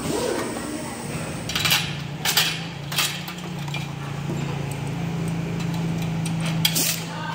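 Metal parts and tools clinking: a handful of sharp clinks spread through, over a steady low hum that starts about a second in.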